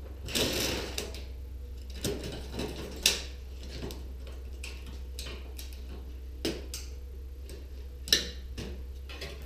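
Scattered metal clanks and clicks from a gas stove's sheet-metal panels and parts being handled during teardown, about six in all with the sharpest a third of the way in and near the end, over a low steady hum.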